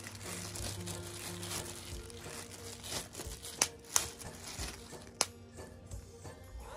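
Clear plastic packaging crinkling and rustling as a flexible-leg tripod is slid out of its plastic sleeve, with a few sharp clicks in the second half.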